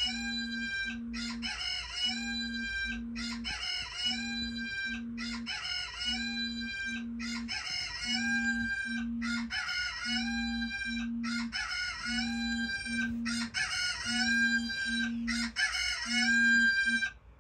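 Smartphone alarm ringing: the same looped alarm sound, a call with a pair of short low beeps, repeats about every two seconds and cuts off suddenly near the end as the alarm is switched off.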